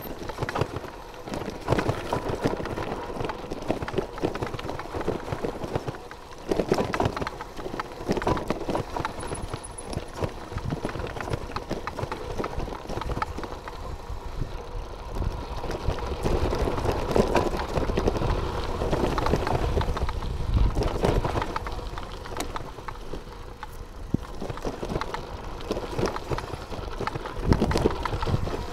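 Bicycle rolling over a loose gravel mountain track: tyres crunching on stones and the bike rattling and clattering over the rough ground in an irregular stream of knocks, with a low rumble swelling in the middle stretch.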